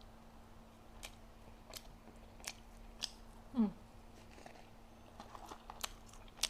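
A person biting and chewing McDonald's food close to the microphone: sharp mouth clicks and crunches every half second or so. About three and a half seconds in, a brief sound falls quickly in pitch, the loudest moment.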